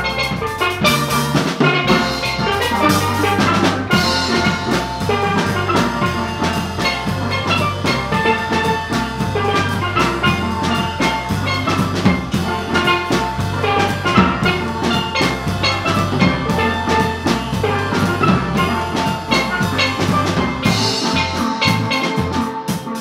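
A steel band playing live: several steel pans struck with mallets carry the melody over an electric bass guitar and a drum kit with cymbals.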